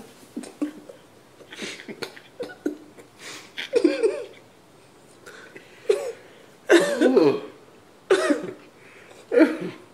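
Stifled laughter: a string of short, held-back laughs and cough-like bursts of breath through a covered mouth, a second or two apart, the loudest about two-thirds of the way in and again near the end.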